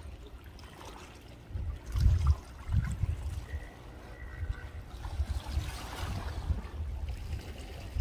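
Wind buffeting the microphone in low gusts, strongest about two seconds in and again just after, over a faint wash of harbour water.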